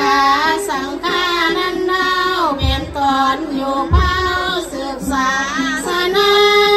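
Sung verse recitation in a wavering, melismatic melody, amplified through a public-address system, in phrases that end on a long held note near the end. Two short low thumps come about halfway through.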